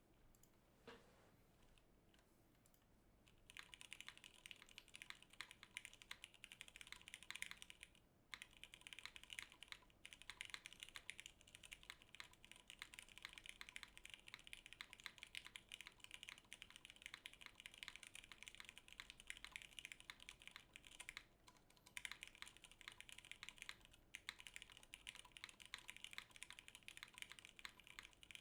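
Fast, continuous typing on a KFE CE top-mount TKL mechanical keyboard with a polycarbonate plate, stock Cherry Hyperglide Black linear switches and CRP R4 keycaps. The typing starts a few seconds in and has a few short pauses.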